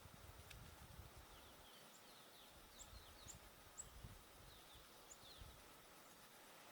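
Near silence with faint, high bird chirps in short scattered series, over a faint low rumble.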